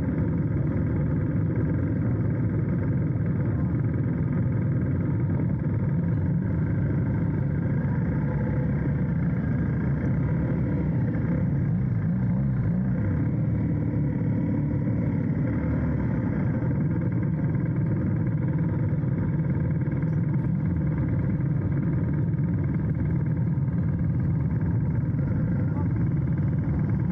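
Motorcycle being ridden at a steady pace, a constant low rumble with no change in speed or revs.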